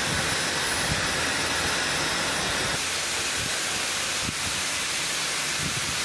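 Brushless (BLDC) hair dryers blowing on a head of hair: a steady rush of air, first a Dyson dryer and then an Agaro BLDC hair dryer, both at a similar, moderate noise level. A faint high whine in the airflow stops about three seconds in.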